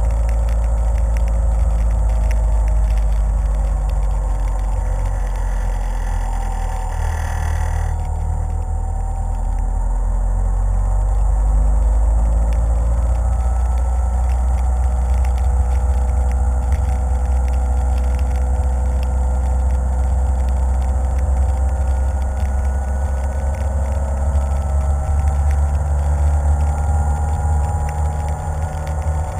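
Car driving on a wet road, heard from a camera mounted on its hood: a steady low rumble of engine and tyres with a hiss that thins out about eight seconds in.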